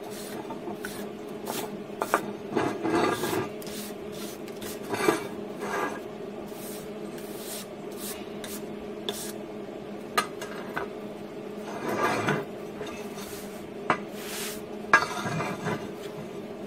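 Wire brush scraping flux-core weld slag off a steel plate in short bursts of strokes, with a few sharp metal clinks from a chipping hammer and the plate on the steel table. A steady low hum runs underneath.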